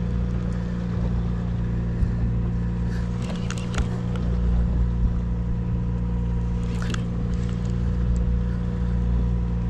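Sportfishing boat's engine running steadily, a continuous low hum with a faint higher whine.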